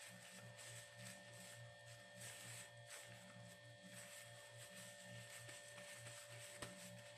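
Near silence: a faint steady electrical hum, with faint rustling.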